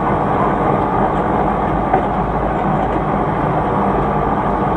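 Log-hauling truck driving, its engine and body giving a steady, loud rumble heard from on board.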